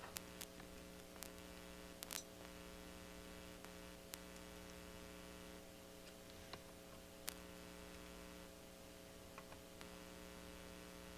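Faint steady electrical hum, with a few small scattered clicks and ticks.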